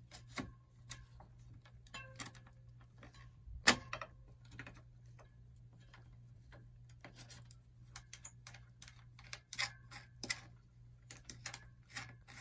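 Irregular light metallic clicks and ticks of a bicycle front wheel being seated in the fork dropouts and its quick-release skewer being fitted by hand, with one sharp, much louder click nearly four seconds in.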